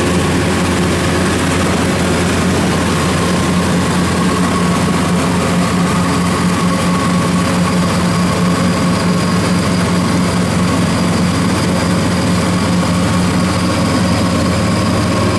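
A motor running steadily: a loud, constant low hum that does not change in pitch.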